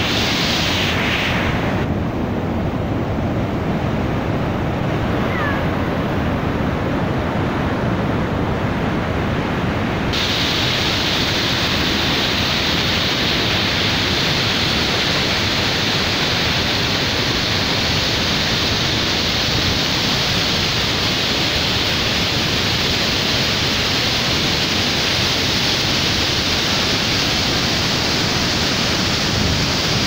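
Steady roar of Iguazú Falls: a huge volume of muddy, flood-high water plunging over the cliffs in a dense, unbroken rush. The sound turns brighter and more hissing about ten seconds in.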